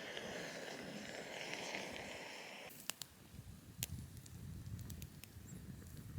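Pull-string fire starter burning like a flare with a steady hiss, which cuts off sharply about two and a half seconds in. After that, faint scattered clicks and crackles.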